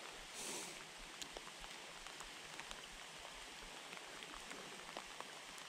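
Light rain falling, a soft steady hiss with many scattered drops ticking close by, and a brief louder hiss about half a second in.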